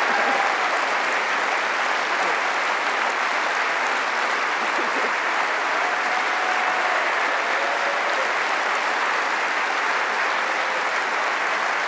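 A large audience applauding steadily, a dense, sustained wash of clapping from a packed hall.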